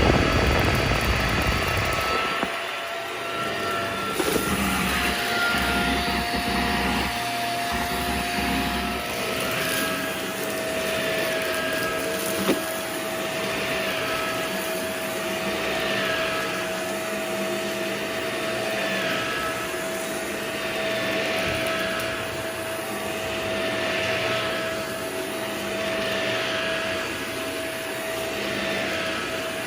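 Vacuum cleaner running with a steady motor whine, its sound swelling and easing every two to three seconds as it is pushed back and forth over the floor. A brief knock comes about twelve seconds in.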